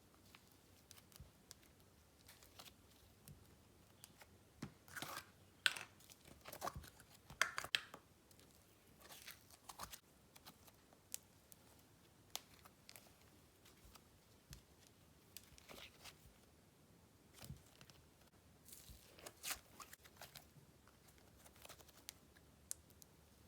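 Faint, scattered crackling and tearing sounds of clay slime being stretched and handled, with a few louder bursts about five to eight seconds in and again near twenty seconds.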